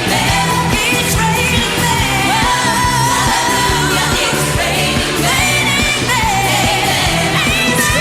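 Female pop vocalists singing live over a pop backing track with a steady beat, holding long, wavering notes.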